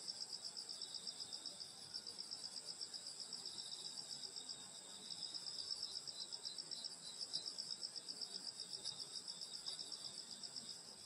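Night chorus of grass insects, a high, fast-pulsing trill from several singers at once. About halfway through, a slightly lower run of quick chirps joins in.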